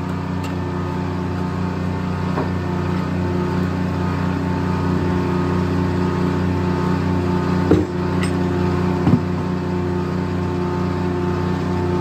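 Engine driving a Corley circle sawmill running steadily, with two sharp knocks a little over a second apart about two-thirds of the way in.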